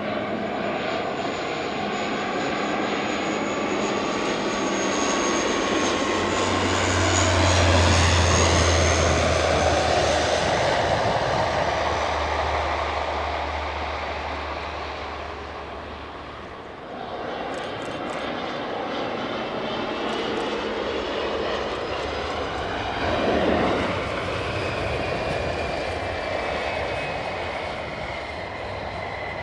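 A Bombardier Q400 twin-turboprop lands, its propeller drone rising to its loudest and then fading as it touches down and rolls out. It gives way suddenly to the steady whine and rush of an Embraer ERJ-145 regional jet's engines on the runway.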